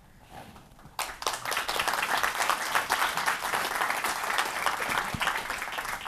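Audience applauding, starting about a second in.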